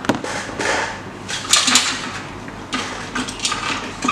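Handling noise from multimeter test leads: a click, then several short bursts of clinking and scraping as the probes are moved about, one resting on the TV's metal chassis and the red probe being laid down on the workbench.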